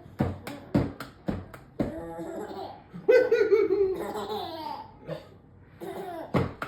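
Baby laughing in short, quick bursts, breaking into a longer high-pitched squealing laugh that falls in pitch about three seconds in.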